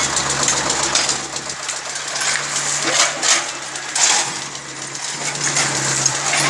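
Hydraulic excavator's diesel engine running with a steady low hum, with several sharp clinks and knocks of stone and rubble.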